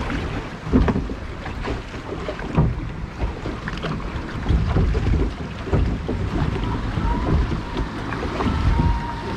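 Log flume boat riding through its water channel: running water and wind buffeting the microphone, with irregular knocks of the boat against the trough.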